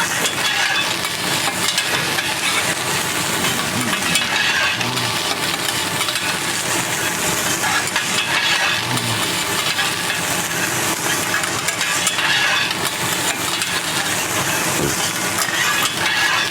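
Fried rice sizzling steadily on a hot iron griddle while metal spatulas stir and scrape it.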